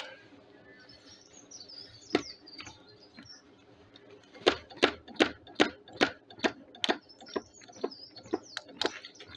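Homemade wood-fired Stirling engine turning over slowly after its flywheel is spun by hand. It gives one knock, then from about halfway through a run of sharp, slightly uneven knocks two to three times a second. The knocking comes from a linkage bolt that was left untightened.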